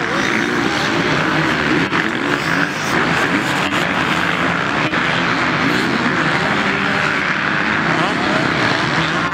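Several racing motorcycle engines running and revving together, a loud steady engine din with pitches that waver up and down.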